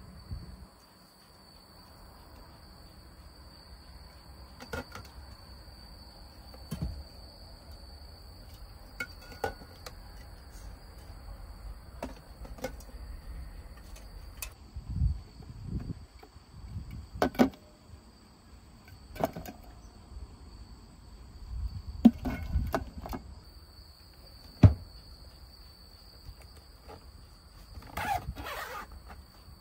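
Scattered clicks, knocks and low thumps of a portable car fridge being handled: its hard plastic lid and body knocked as items are set inside and it is closed up, with the loudest knocks in the middle. A faint steady high insect drone runs behind.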